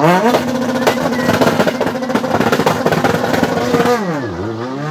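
Car engine held at high revs with a rapid, dense crackle of exhaust pops and bangs over it; about four seconds in, the revs drop sharply and climb again.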